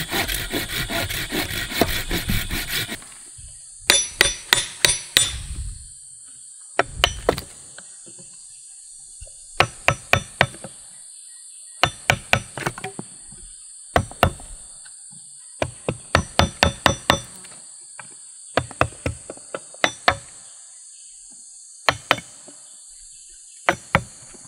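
Hand saw rasping through a green sapling for about three seconds. This is followed by clusters of sharp knocks, several a second, as a large blade is struck into the cut in the green wood.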